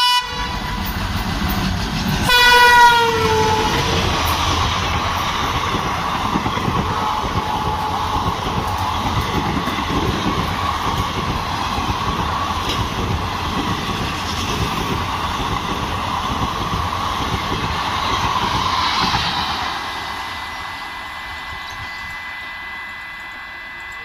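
Express train passing at speed behind a diesel locomotive: the locomotive's horn sounds once for about a second, its pitch dropping as the engine goes by. The coaches then rush past with a steady rumble and a clatter of wheels over the rail joints, which fades near the end as the train draws away.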